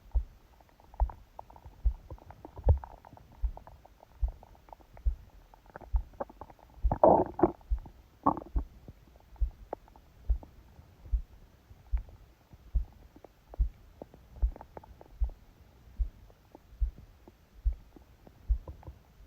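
A sleeping person's stomach gurgling, picked up with the phone pressed on the belly, with one loud drawn-out gurgle about seven seconds in. Under it a steady heartbeat thumps at about four beats every three seconds, made loud by the pressure of the phone and book on the belly.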